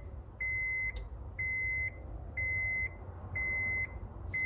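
Electronic beeper sounding a steady, high single-tone beep, each about half a second long, about once a second, five times.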